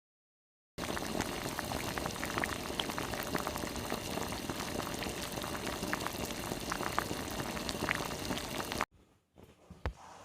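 Liquid bubbling at a boil in a cooking pot, a steady hiss with many small pops. It starts about a second in and cuts off abruptly near the end.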